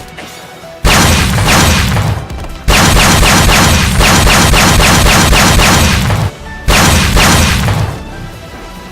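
Rapid barrages of Josuke's punch sound effect from JoJo's Bizarre Adventure, many hits a second, in three long bursts that start about a second in and stop shortly before the end, over background music.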